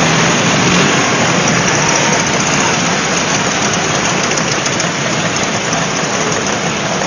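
Small two-stroke engines of several vintage Vespa scooters running as they ride past close by.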